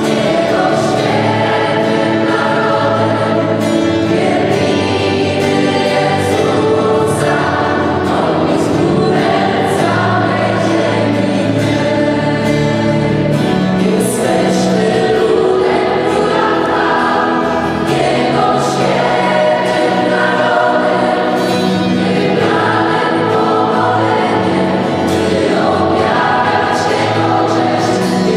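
Large mixed youth choir singing a gospel song in full harmony, with band accompaniment, in a reverberant church.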